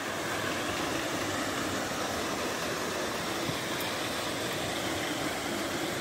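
Waterfall rushing: a steady wash of falling water, with no distinct events.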